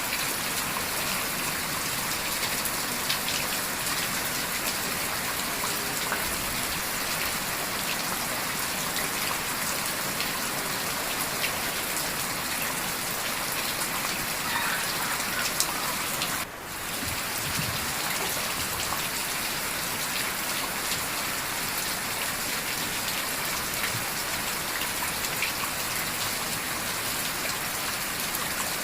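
Steady heavy rain falling and pattering on surfaces, an even hiss with scattered drip ticks, briefly dipping in level about sixteen seconds in.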